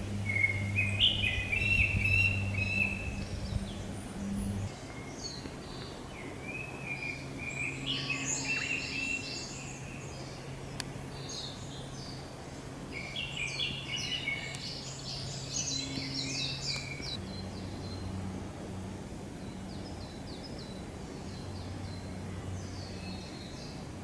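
Songbirds singing in the forest: several bursts of high, warbled song a few seconds apart, with a faint phrase near the end. A low steady hum runs underneath, louder in the first few seconds.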